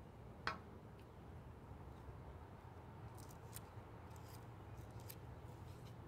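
Faint scraping and clicking of a wooden craft stick spreading peanut butter into the scales of a pine cone, with one sharper click about half a second in and several short scrapes later on.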